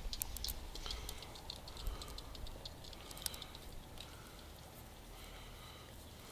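Rapid small metal clicks and ticks of an Allen key working stainless-steel socket-head bolts snug into a nylon housing, thick for the first three seconds or so and then thinning out.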